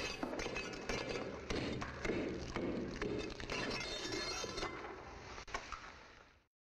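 A metal tool chipping and scraping at broken concrete or stone, with irregular sharp clinks and crumbling debris. It fades out near the end.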